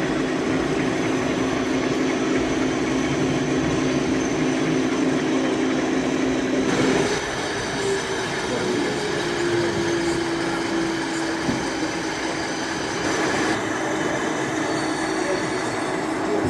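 Model train running on an exhibition layout: a steady electric motor hum that shifts to a slightly higher pitch about seven seconds in and then sinks a little, over a constant murmur of hall chatter.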